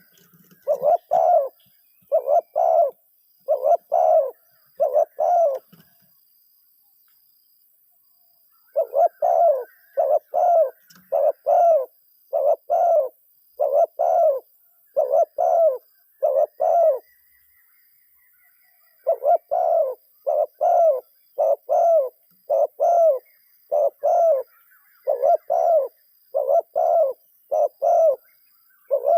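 Zebra dove cooing in quick runs of short, clear notes: three bouts broken by pauses of two or three seconds. It is a decoy dove calling to wild doves.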